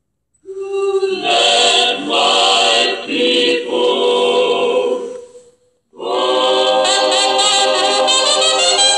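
Musical plush teddy bear playing recorded choir singing through its speaker. After about five seconds the song stops briefly, and a new tune starts about six seconds in.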